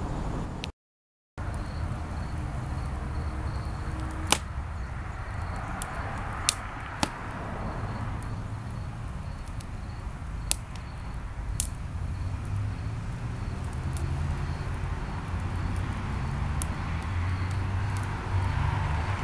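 Wood fire burning in an open steel fire pit, with scattered sharp pops and crackles from the burning split log over a steady low rumble.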